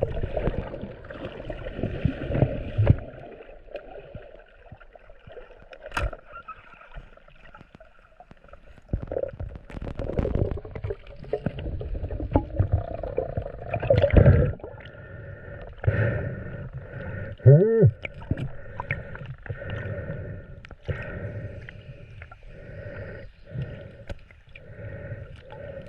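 Shallow sea water sloshing and gurgling around a wading snorkeller, with scattered knocks and one sharp click about a quarter of the way in.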